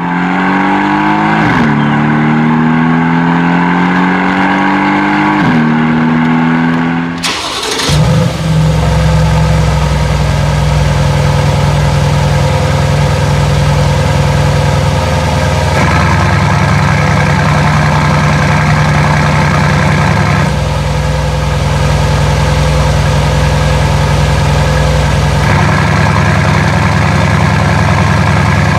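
A repeating rising tone for the first seven seconds, then the 2020 Mercedes-AMG GT's twin-turbocharged 4.0-litre V8 starts with a sudden flare and settles into a steady idle, its note shifting a few times.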